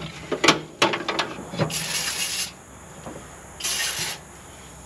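Aerosol fire-suppressant can sprayed in two short hissing bursts, laid down as a precaution before welding, after a few light clicks of handling.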